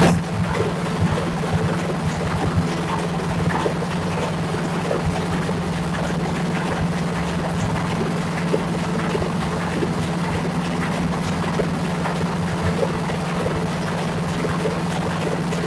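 Steady din of running diesel machinery in a ship's engine room: a constant low hum under a wide noise, with scattered small knocks and clicks.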